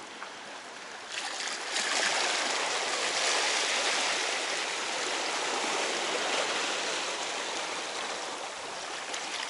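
Seawater washing and foaming over rocks at the shoreline: a steady rush of water that swells up a second or two in and keeps going.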